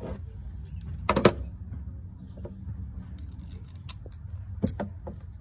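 Metal hand tools (ratchet, extension and spark plug socket) clinking as they are handled, with a clatter of sharp clicks about a second in and a couple of single clicks later, over a steady low rumble.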